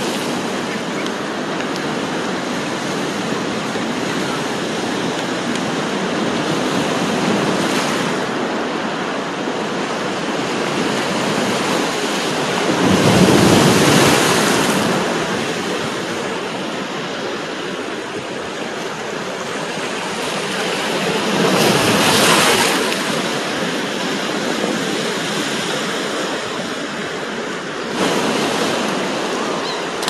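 Sea waves surging and washing against shore rocks in a steady rush of surf, with louder swells breaking about midway and again about three-quarters of the way through.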